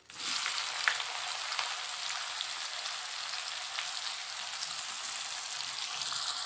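Sliced onions dropped into hot oil in a kadai, sizzling and frying: the sizzle starts suddenly and then holds steady, with a sharp click about a second in.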